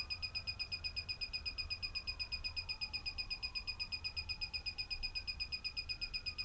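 Ninebot One E+ electric unicycle beeping rapidly and steadily, one high pitch in quick even pulses, while its power button is held down: part of its power-button system-reset sequence, with the red LEDs flashing.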